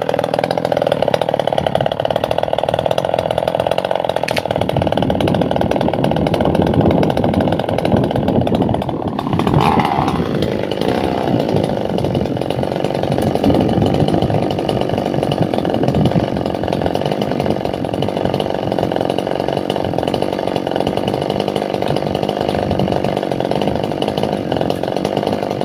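Two-stroke chainsaw running steadily without a break, its engine note dipping briefly and picking up again about ten seconds in.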